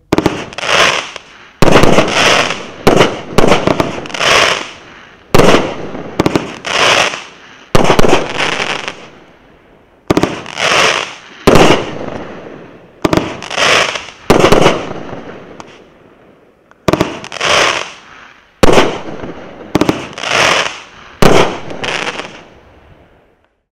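A 24-shot, 500-gram consumer fireworks cake (Super Fireworks Firestarter) firing shot after shot: about two dozen sharp bangs, each dying away over about a second, coming in uneven clusters with two short pauses before the last shot fades out near the end.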